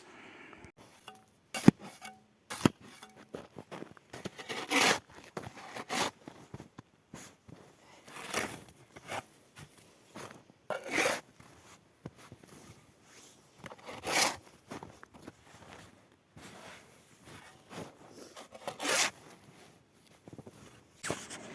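Snow shovel scraping and scooping snow in repeated strokes a few seconds apart, with a couple of sharp knocks near the start.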